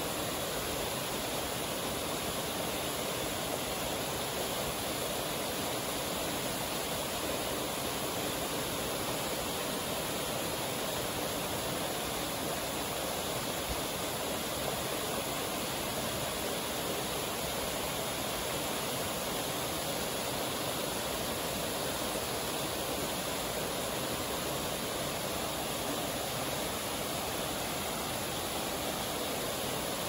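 Waterfall and stream rushing over rock ledges: a steady, even roar of water.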